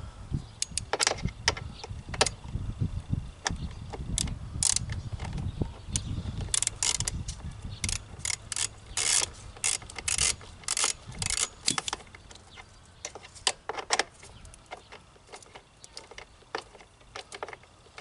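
Socket ratchet wrench clicking in quick runs as bolts are tightened on a push lawn mower, with some clatter of tool handling. The clicking is thickest in the middle and thins out near the end.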